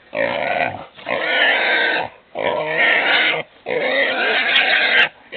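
A wild boar squealing, four loud, harsh squeals in a row, each about a second long, with short breaks between them.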